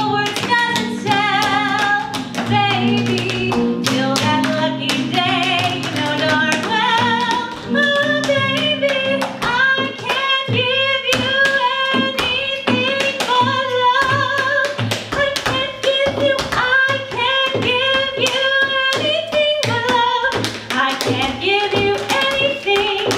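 Tap shoes striking the stage in quick, dense rhythms from two tap dancers, over a woman singing to a live acoustic guitar.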